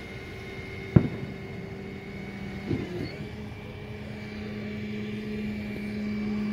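Steady hum of an engine running, with a sharp knock about a second in and a smaller one near the middle.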